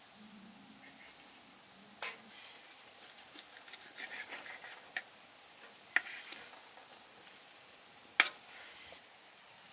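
Kitchen knife cutting raw pork on a wooden cutting board: a fine, moist crackle of the blade slicing through meat and fat from about three to five seconds in, and several sharp knocks of the blade against the board, the loudest near the end.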